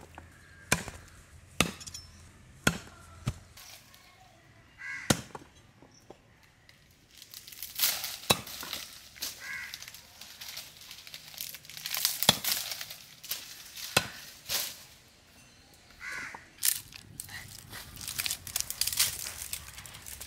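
Chopping: sharp single strikes about a second apart over the first few seconds, then stretches of rough noise with more strikes mixed in.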